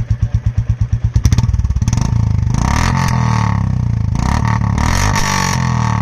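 Royal Enfield Classic 350 Reborn's single-cylinder engine idling with an even thump through a short thin-mouth Punjab-style exhaust that keeps its catalytic converter. About a second in it is revved up in a few throttle blips, very loud on the throttle.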